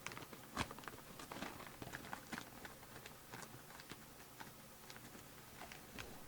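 Faint, irregular clicks and crinkles of trading cards and pack wrappers being handled, with the sharpest click about half a second in.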